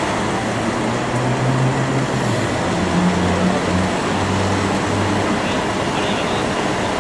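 Hitachi hydraulic excavator's diesel engine running under load as its arm lowers a dismantled sign panel, its low note shifting in pitch several times over a steady background noise.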